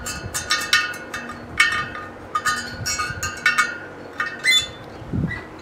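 Tensioned wire spokes of a motorcycle wheel and a spoke wrench clinking during truing: an irregular run of light metallic strikes, about three or four a second, each ringing briefly, stopping near the end.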